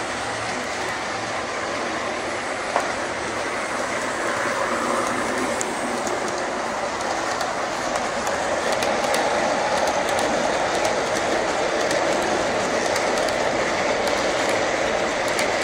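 Long model freight train rolling past close by: a steady rumble of the wagons' wheels on the track that grows slowly louder, with a few faint light clicks.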